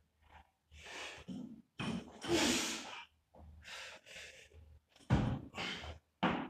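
A weightlifter's forceful, loud breathing and grunting exhales through a barbell clean and jerk. The longest and loudest exhale comes about two seconds in, as the bar is cleaned to the shoulders, and a sharper, deeper burst comes about five seconds in, at the drive overhead.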